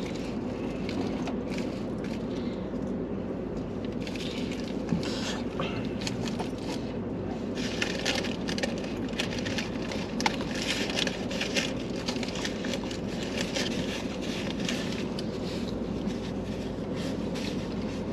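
Eating sounds: takeout food and its paper wrapping rustling and crinkling, with scattered small crackles and clicks, over a steady low hum.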